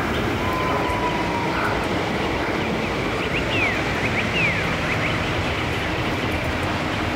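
Steady rushing of a waterfall, with a few short, falling bird chirps in the middle.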